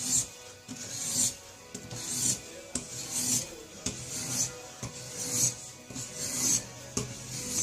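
400-grit water stone of a guided knife-sharpening kit rasping along a kitchen knife's edge in regular strokes, about one a second.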